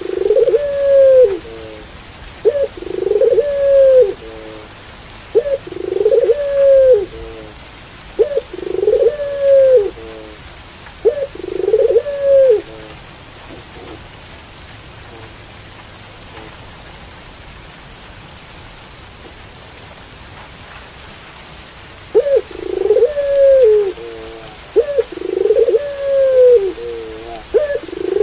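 Puter pelung (domestic ringneck dove) cooing: a series of deep coos, each a short note followed by a longer arched one, about one every two to three seconds, pausing near the middle and starting again some nine seconds later. A steady hiss of rain runs underneath.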